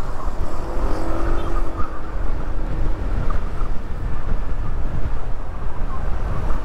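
Motorcycle riding along a road: wind rushing over the microphone, with the engine's steady drone underneath.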